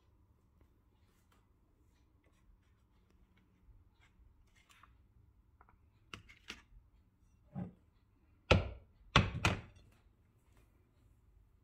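Hard knocks and clatters of a plastic air fryer basket being handled and set down on a countertop: a few light clicks past the middle, then three loud knocks in quick succession.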